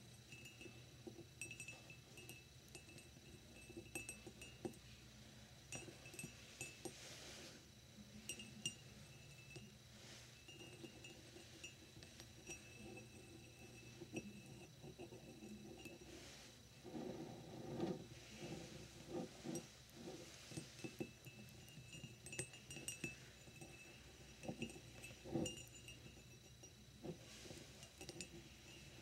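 Fingernails tapping and handling a dimpled glass beer mug on a wooden desk: quiet clicks and clinks, some with a brief glass ring. They come more often in the second half.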